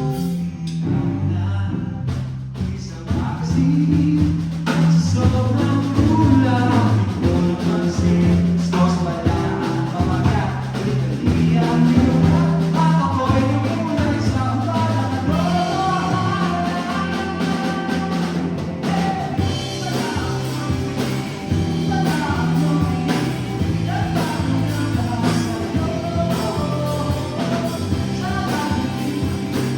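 Music: a song with a singing voice over a bass line that moves from note to note every second or two, loud and steady throughout.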